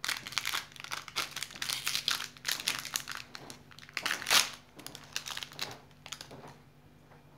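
Thin clear plastic wrapper crinkling as fingers work it off a small toy snake figurine: a dense run of crackles with one louder crackle a little past halfway, thinning out near the end.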